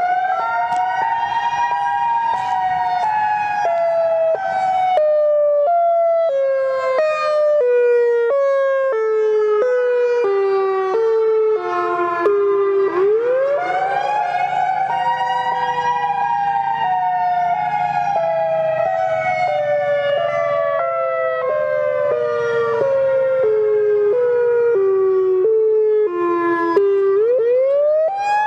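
A loud siren-like wailing tone that sweeps up quickly, then falls slowly in small steps, in two long cycles of about thirteen seconds each, with a third rise starting near the end.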